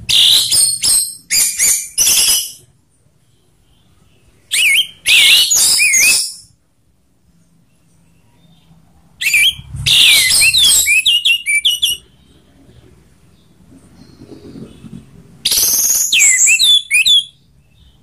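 Orange-headed thrush singing its loud ngeplong song in four bursts of a few seconds each, with pauses between. Each burst is a rapid run of high, varied notes and short down-slurred whistles.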